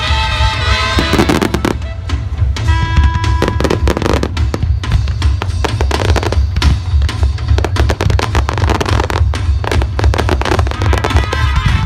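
Aerial fireworks going off in a dense, rapid barrage of bangs and crackles over a constant low booming, with music playing along.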